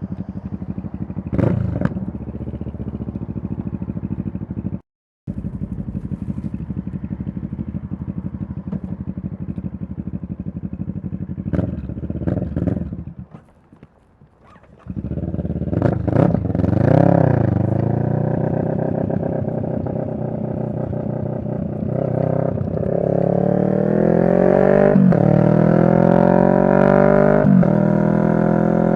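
CFMoto 650NK's parallel-twin engine running at a steady speed with a couple of brief blips. It drops almost silent for about two seconds near the middle, then revs up and pulls away. In the last seconds it accelerates with rising pitch, broken by two upshifts.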